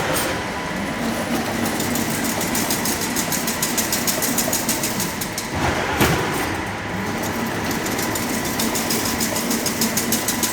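Automatic double-wire diamond-mesh (chain-link) weaving machine running, a steady hum under a rapid, even clatter, with a heavier clank about six seconds in.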